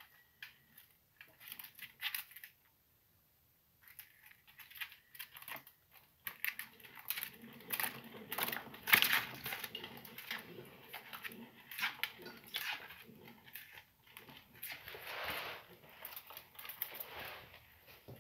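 Sugar glider running in a plastic exercise wheel: a few scattered clicks and scrabbles of claws at first, then from about six seconds in a continuous rattling, scraping clatter as the wheel spins.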